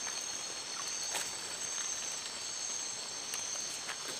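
Steady high-pitched chorus of night insects, several unbroken shrill tones layered together. A couple of faint clicks come through, one about a second in and one near the end.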